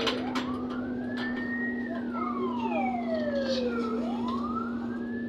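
Ambulance siren wailing, heard from inside a trolleybus: the pitch rises slowly, falls over about two seconds, then rises again near the end. A steady low hum runs underneath.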